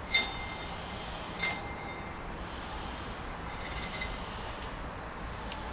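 Metal clinks as anti-chatter spring clamps are worked onto a brake drum mounted on a brake lathe: two sharp clinks with a brief ring, about a second and a half apart, then lighter clinking a couple of seconds later.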